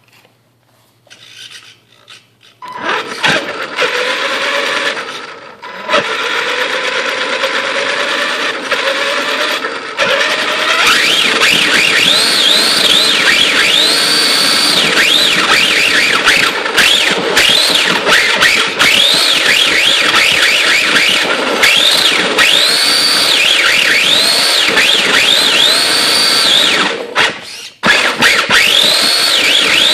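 Tamiya RC drift car's electric motor and drivetrain whining, heard close up from a phone strapped to the car. The pitch rises and falls again and again as the throttle is worked. It starts about three seconds in and drops out briefly near the end.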